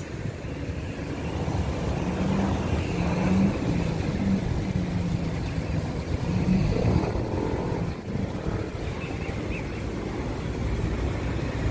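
Steady low rumble of road traffic, with a low engine hum that comes and goes through the first half.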